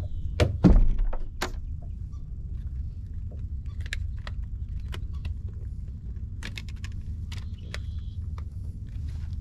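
Fishing tackle and soft-plastic bait packaging being handled in a boat: two loud knocks within the first second, then scattered light clicks and taps, over a steady low rumble.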